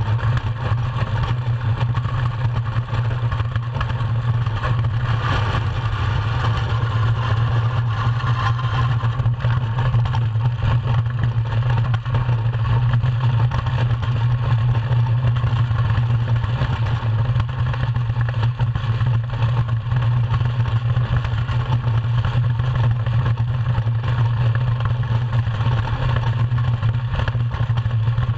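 Iceboat sailing at speed across lake ice: a steady, loud low rumble of the runners on the ice, mixed with wind noise on the hull-mounted camera.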